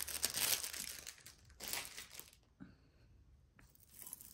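Clear plastic bag crinkling as a pile of loose metal costume jewelry is rummaged through. There are two bursts of rustling in the first couple of seconds, then quieter, with small crackles and clicks near the end.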